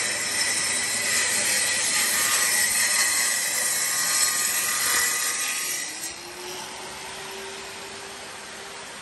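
ROLL RO-4 parquet saw cutting grooves through glued three-layer wooden parquet, a loud steady sawing noise. About six seconds in the cutting noise drops away, leaving a quieter steady motor whine that rises briefly and then holds.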